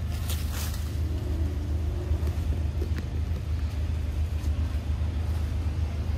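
A steady low rumble, with a short hiss about half a second in and a few faint clicks.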